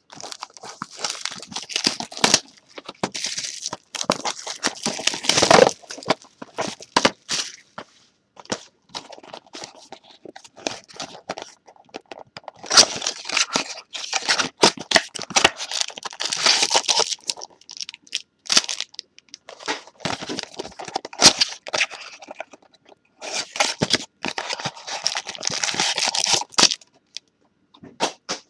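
A Bowman's Best baseball hobby box being unwrapped and opened by hand: crinkling and tearing of its plastic wrapping and cardboard in irregular bursts with sharp clicks, as the foil card packs are pulled out and set down. Short pauses break the handling noise a few times.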